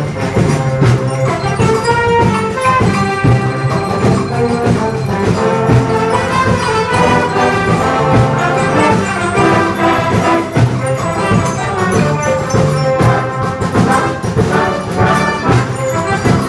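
A school band's brass, with tuba, trombones and percussion, playing a piece live. The music runs on at a steady, full level without a break.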